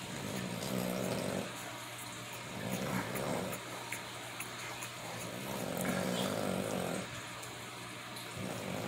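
Two-week-old American Bully puppy grunting and snuffling in low, rough spells about a second long every two seconds or so, with a faint high squeak or two.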